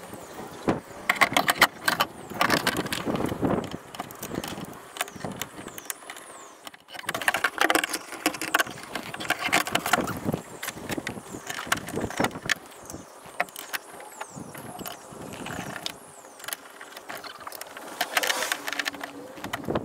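Metal window regulator and its motor knocking, clattering and scraping against the sheet-metal inner panel of a 2003 Toyota Highlander's front passenger door as it is worked into position, in irregular bursts of sharp knocks and rubbing with short pauses.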